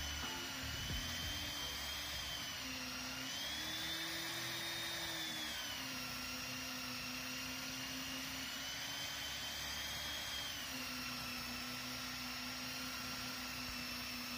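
Stationary belt sander running while a wooden piece is pressed and worked across the belt, a steady whine whose pitch sags and recovers a few times as the load on it changes.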